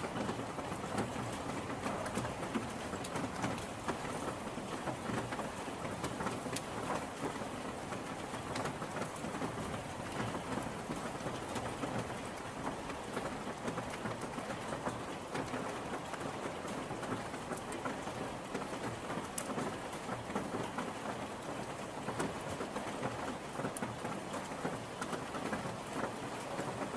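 Steady rain falling, with a dense patter of individual drops ticking throughout.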